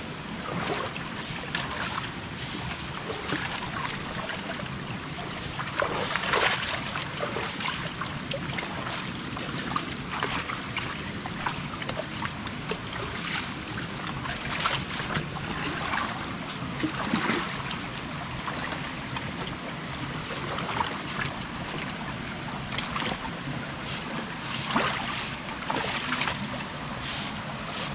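Stream water running steadily through a rocky gorge, with short irregular splashes every second or two.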